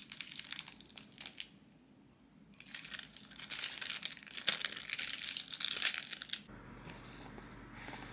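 Plastic film of a processed cheese slice crinkling as it is handled and peeled away: a short bout of crackling, then a longer one after a brief pause.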